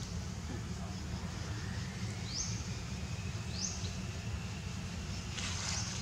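Outdoor ambience: a steady low rumble with a few short, high, rising bird chirps about a second and a half apart, and a brief rustling burst near the end.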